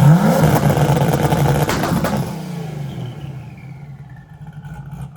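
Turbocharged, cammed IROC Camaro engine on a practice two-step: revved up sharply onto the launch-control limiter at the start and held there with a few sharp pops, then let back down, falling off toward idle over a couple of seconds before revving up again at the very end.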